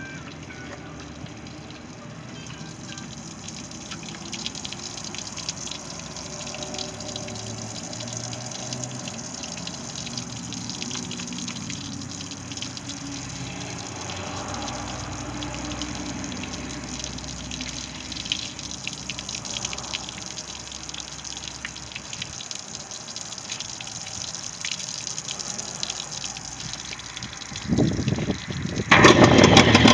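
Water running steadily from a hose and splashing onto pavement. Near the end a Johnson 50 HP outboard motor cranks and starts, running loudly.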